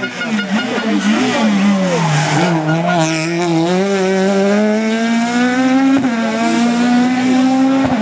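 Peugeot 306 Maxi rally car's naturally aspirated two-litre four-cylinder engine coming off the throttle and downshifting into a hairpin. It then accelerates hard out of it with a steadily rising note, changing up a gear about six seconds in and again at the end. The tyres squeal briefly at about three seconds.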